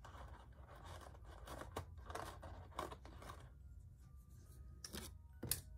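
Crinkling and rustling of plastic packaging as a plastic board-game miniature is handled and taken out, followed by two sharp clicks near the end.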